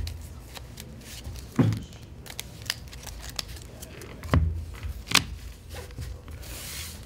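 Cards and a deck box being handled on a playing table: a few short taps and thumps, the loudest about a second and a half in and again about four and a half seconds in, with light rustling of cards between them.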